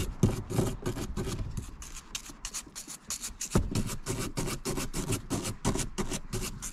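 Small nylon brush scrubbing a fluid reservoir bottle and cap in fast back-and-forth strokes, about six a second, easing off for a moment in the middle, with a single knock about three and a half seconds in.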